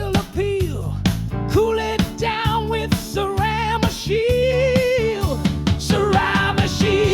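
Pop-rock advertising jingle: a voice holding long notes with vibrato over guitar and a steady bass line.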